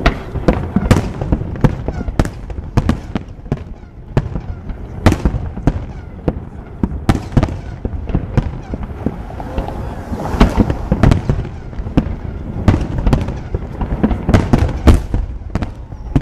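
Aerial fireworks shells bursting over and over at irregular intervals, a dense run of booms and sharp cracks.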